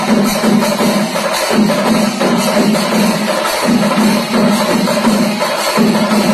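Ritual music with drums and clattering percussion over a dense ringing wash, and a strong low drone that breaks off and restarts about every two seconds.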